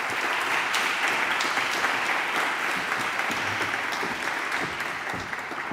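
Audience applauding, a dense, steady clapping that tapers off near the end.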